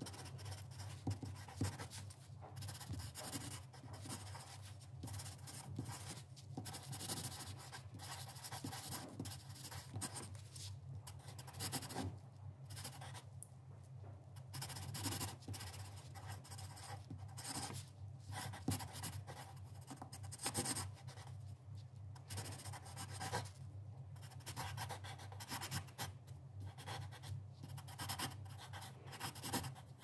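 Pencil writing on paper: irregular scratching strokes in short runs with brief pauses between them, over a steady low hum.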